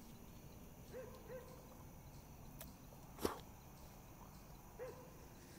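A dog barks faintly three times in short single barks. A little past three seconds there is a sharp click, the loudest sound, from handling the lock of a flintlock blunderbuss. A fainter tick comes just before it.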